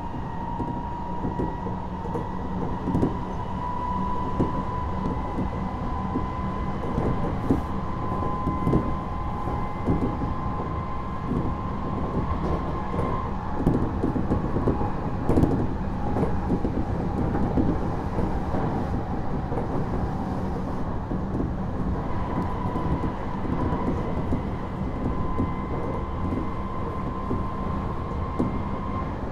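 Odakyu Series 1000 electric train running at speed, heard from inside motor car DeHa 1445 with its Mitsubishi SiC-MOSFET VVVF drive: a steady rumble with scattered knocks from the wheels on the rails. Over it runs a high traction-motor whine that rises slightly in pitch, fades out about 13 seconds in and comes back about 22 seconds in.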